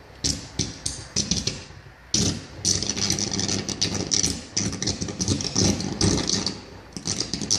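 A burning high-voltage cable arcing: a loud crackling buzz that comes in short bursts, then runs almost without a break from about two seconds in until near the end.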